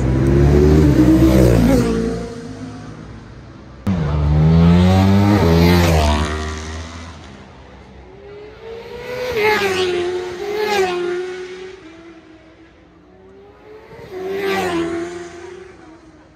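Racing motorcycles passing at speed one after another, about five in all, each engine note swelling and then dropping in pitch as it goes by. The second pass, about four seconds in, cuts in suddenly and is the loudest.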